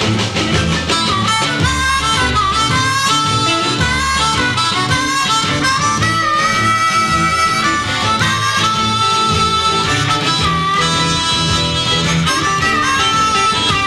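A blues harmonica playing a solo line over band backing, its notes bending up and down over a steady rhythm.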